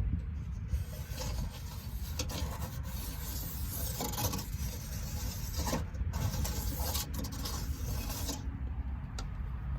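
A marker being drawn around the inside of a 10-inch spiral duct section onto flat sheet metal, tracing the end cap outline: a steady scratchy rubbing with a few light clicks of metal against metal.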